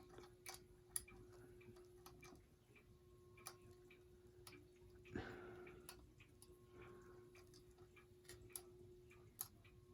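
SMC A52 ceiling fan running on its low setting, with a faint steady hum and scattered light clicks and ticks as he works the light kit's pull chain, which he later calls a bad pull chain.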